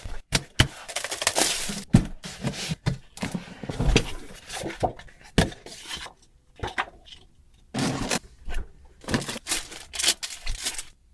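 Toy box and packaging being opened and handled: an irregular run of crackles, scrapes and sharp clicks, with a quieter stretch in the middle, stopping just before the end.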